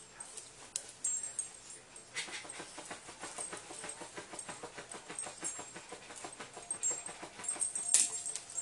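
Havanese dog busy at the edge of a bed, making a quick, even series of soft rhythmic sounds from about two seconds in. A faint thin whine comes near the end, then one short sharp sound.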